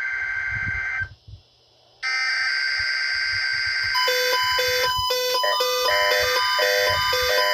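NOAA Weather Radio emergency alert (SAME) header data bursts: harsh, steady electronic screeching. The first burst cuts off about a second in, and another starts a second later. From about four seconds in, a rhythmic pattern of beeping tones at two pitches plays over it.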